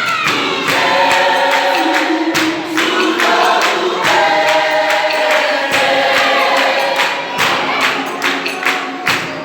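A vocal group singing a song in several-part harmony over a steady beat of sharp knocks. Near the end the singing thins out and the beats stand out on their own.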